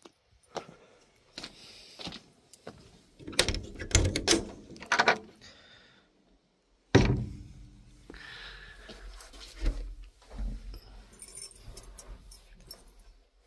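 Handling noise: scattered clicks, rattles and knocks, a burst of clattering a few seconds in and a single heavy thump about seven seconds in, followed by lighter knocks over a faint low hum.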